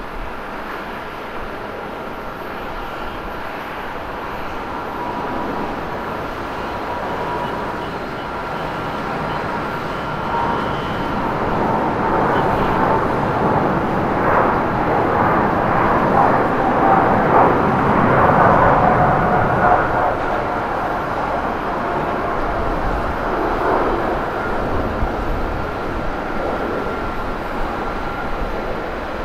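Four-engine Boeing 747 jumbo jet on its takeoff roll at full takeoff thrust. The engines' rumble and whine grow louder to a crackling peak about halfway through as it passes close by, then ease off slightly as it lifts off and climbs away.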